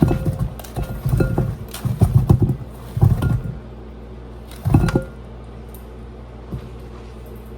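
Knife cutting fruit on a cutting board: a run of irregular knocks and taps, a pause, then one more short cluster about five seconds in, over a steady low hum.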